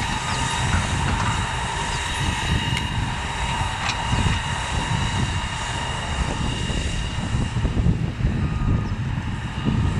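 Deutz Agrotrac 610 tractor's engine running steadily under load while pulling a 32-disc harrow through stubble, with a steady high whine over a low rumble. A few sharp clicks sound about three and four seconds in.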